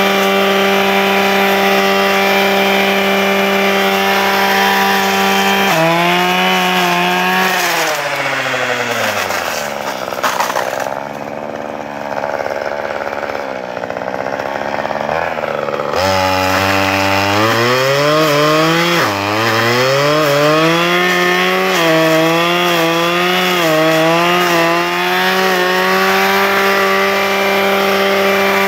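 Husqvarna 535RJ brushcutter's small two-stroke engine running at high revs. About six seconds in it drops back to idle, and about ten seconds later it is revved up again. From then on its speed rises and dips as the Brushdestructor blade cuts through brush.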